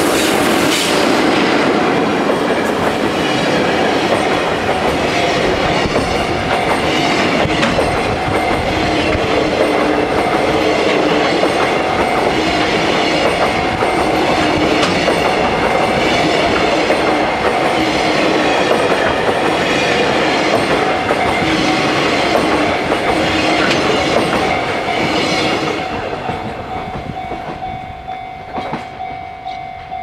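Freight train hauled by a JR Freight EF66 electric locomotive passing close by, the container wagons' wheels clattering rhythmically over the rail joints, while a level-crossing alarm bell rings steadily. About 26 seconds in the train noise fades away, leaving the crossing bell's regular ding-ding.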